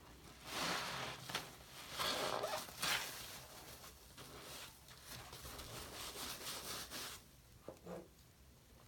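A large foam sponge soaked in shaving-cream lather squeezed and kneaded by hand, squelching with a crackling fizz of bubbles. Two louder squeezes come within the first three seconds, then softer crackling of the foam and a couple of small squishes near the end.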